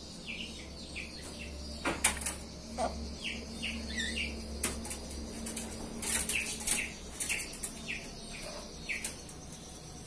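Caged birds in an aviary chattering at dusk, with a run of short chirps that each fall in pitch, repeated about every half second. There are a few sharp clicks, the loudest about two seconds in, and a flutter of wings as a bird leaves its perch.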